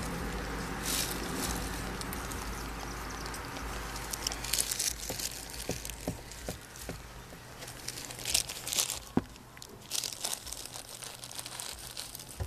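Mother cat licking and chewing through her newborn kitten's umbilical cord: irregular short scratchy bursts with a few sharp clicks in the middle.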